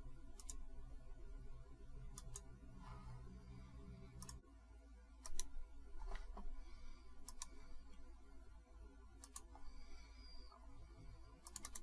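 Faint computer mouse clicks, some in quick pairs like double-clicks, spaced one to two seconds apart over a low steady hum.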